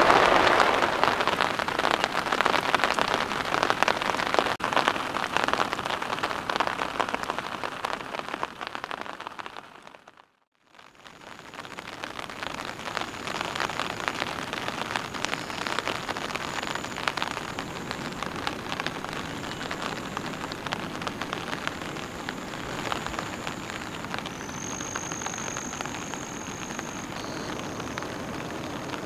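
Heavy rain falling steadily, fading out about ten seconds in and coming back in a little quieter. In the second part, faint high steady tones come and go over the rain.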